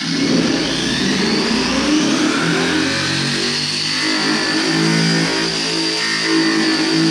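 Background rock music led by a distorted electric guitar, loud and steady, its chords changing every half second or so.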